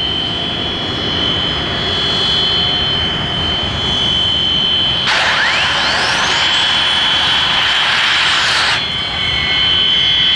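English Electric Canberra jet being started on its Rolls-Royce Avon cartridge starter. About five seconds in, the cartridge fires with a loud rushing hiss lasting nearly four seconds, which cuts off abruptly, while the turbine's whine sweeps up in pitch. A steady high jet whine runs underneath throughout.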